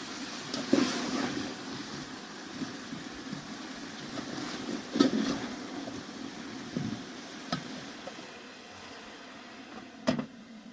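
A pot of cauliflower boiling hard on a wood fire, a steady bubbling rumble, with a metal ladle knocking against the pot a few times as it is stirred. Near the end a metal lid clanks onto the pot.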